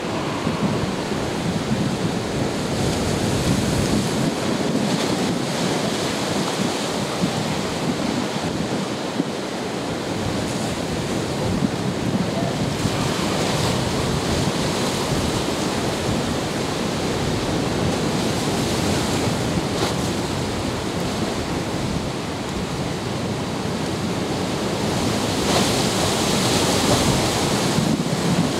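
Wind buffeting the microphone over steady waves and surf of a choppy sea, swelling a little about halfway through and again near the end.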